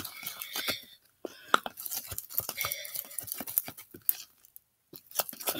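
Slime being squished and stirred by fingers in a small plastic tub while borax activator is worked in, giving irregular wet clicks and crackles, with two short pauses.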